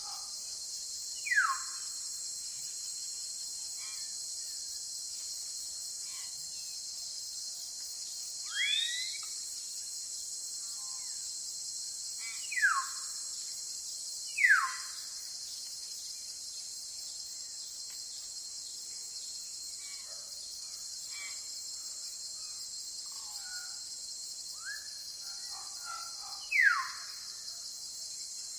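Steady high insect drone of crickets or cicadas, with a bird giving loud, quick down-slurred whistles four times, one rising call, and scattered softer calls.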